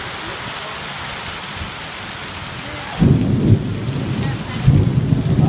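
Heavy rain pouring steadily. About three seconds in, a loud, low, irregular rumbling sets in and runs on, louder than the rain.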